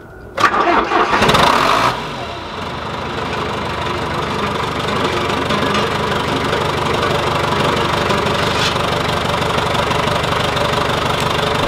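John Deere 410C backhoe's turbocharged diesel engine cranked over by the starter for about a second and a half, catching and then running at a steady idle. It starts readily now that a problem electrical connection has been repaired and tightened.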